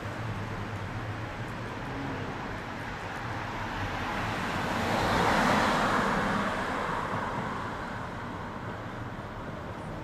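Road traffic noise, with one vehicle passing close: the rush of tyres and engine swells to its loudest about halfway through, then fades back into the steady hum of traffic.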